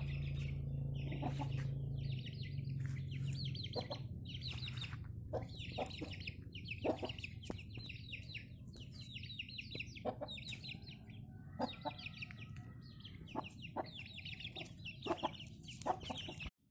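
A bird calling over and over in short, high chattering calls, with a few sharp clicks between them. A low hum fades out in the first few seconds, and the sound cuts off suddenly just before the end.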